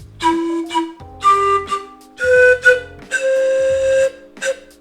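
Zampoña malta (Andean panpipe) playing a short phrase of the second-voice harmony part: a few breathy notes stepping upward, the last long one held for about a second, then a brief closing note.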